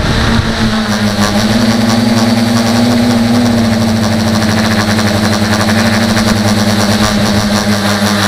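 Tricopter's electric motors and propellers humming steadily at close range from the onboard camera. The pitch rises a little about two seconds in and settles back as the throttle changes.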